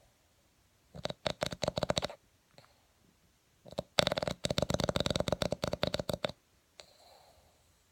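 Boston Terrier snoring in its sleep: two rattling snores, the first about a second long and the second about two and a half seconds long, followed by a soft breath out near the end.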